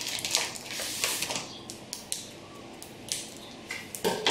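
Plastic packaging crinkling and rustling in short irregular bursts with light clicks as a roll of phyllo pastry is slid out of its plastic tray. A louder rustle and knock comes near the end as the roll is set down on a wooden board.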